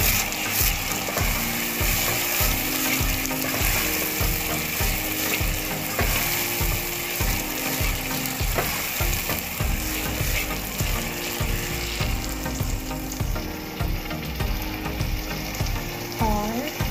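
Tomato paste frying in hot oil with onion and ginger-garlic masala in a pan, sizzling steadily while a metal ladle stirs and scrapes through it.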